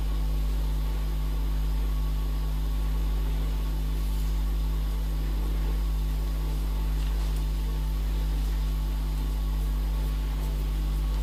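Steady low hum with an even hiss behind it, unchanging throughout.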